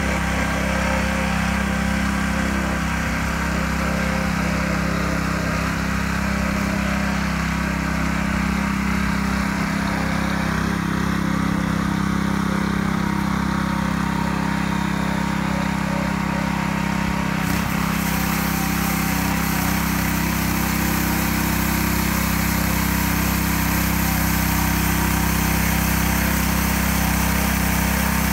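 Small petrol engine of a Kersten K1500 walk-behind implement carrier running steadily, driving a rotating weed brush that scrubs along the kerb and gutter. A scratchy hiss gets louder about two-thirds of the way through.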